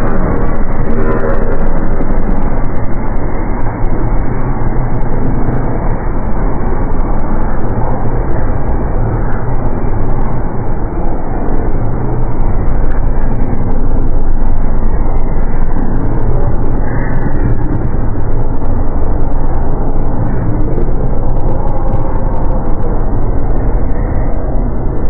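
Dark ambient horror soundscape: a loud, continuous, dense rumbling drone, heaviest in the deep lows, with faint crackles scattered over it.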